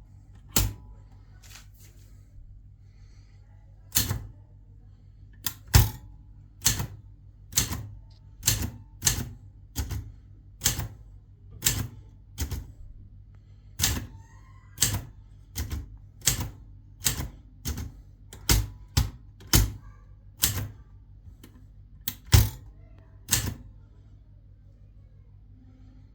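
Adler typewriter keys struck one at a time, each a sharp clack, at a slow, uneven pace of roughly one a second with a couple of short pauses. A faint steady low hum runs underneath.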